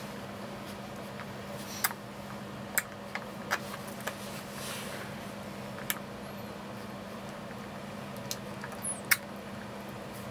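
Three-week-old European wolf pup sucking milk from a baby bottle's teat: about eight irregular clicks and smacks from its mouth, the loudest near the end, over a steady low hum.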